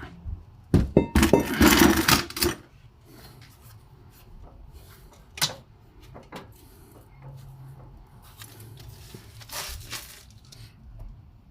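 Metal tools and parts clinking and clattering, a dense run in the first two and a half seconds, then scattered single clicks and a short scrape near the end.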